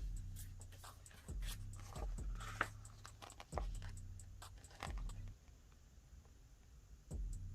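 Faint crinkling, rustling and small clicks of sticker sheets and packaging being handled, the sharpest crinkle about two and a half seconds in.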